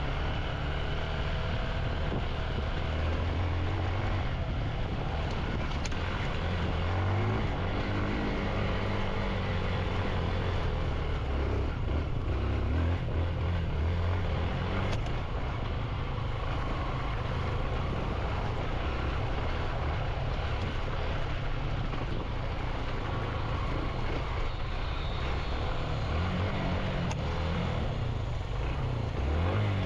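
Motorcycle engine running under way on a rough trail, its pitch rising and falling with the throttle, over a steady rush of wind and road noise.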